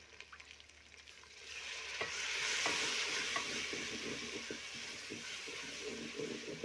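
Onion, ginger and green chilli base frying in oil in an aluminium pot, stirred and scraped with a long metal spoon. A sizzle swells up about a second and a half in, is loudest around three seconds, then eases to a steady frying under the spoon's scrapes and clicks.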